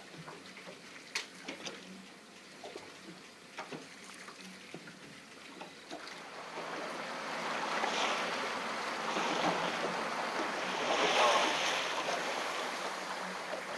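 Water and wind rushing around a fishing boat, faint at first with a few light knocks, then swelling from about six seconds in to its loudest near the end.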